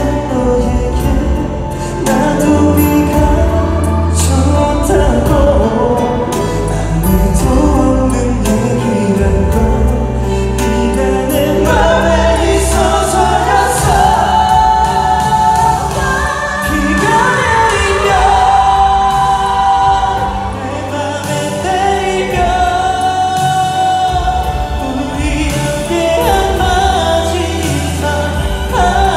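Male K-pop vocal group singing a slow ballad live, with instrumental accompaniment and a strong bass line, heard through a concert hall's PA from the audience. Long held sung notes glide up and down.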